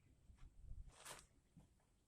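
Faint handling noises: a few small clicks and a brief rustle or scrape about a second in.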